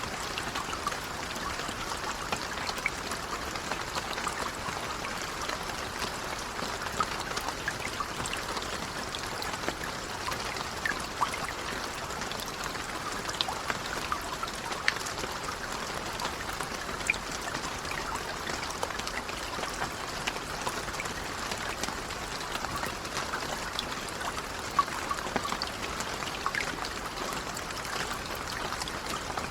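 Steady, gentle rain, a continuous patter with scattered individual drops ticking.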